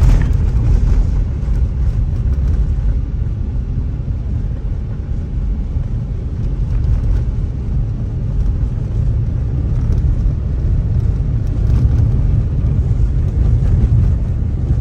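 Steady low rumble of a moving car's engine and tyres on the road, heard from inside the car.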